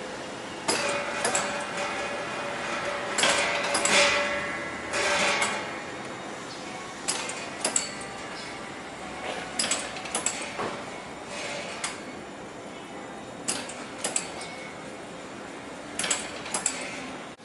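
AICHI Multi dora2 automatic dorayaki-making machine running: irregular mechanical clanks and clicks, often in pairs about half a second apart, some with a short ring, louder and closer together in the first five seconds.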